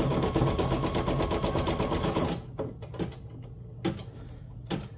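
Brother Innov-is NS1250E embroidery machine stitching at a fast, even rate, then stopping abruptly a little over two seconds in. A few separate clicks follow over a faint steady hum.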